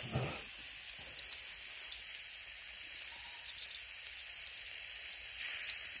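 Food sizzling in a frying pan: a steady hiss with a few faint crackles, a small cluster of them about three and a half seconds in.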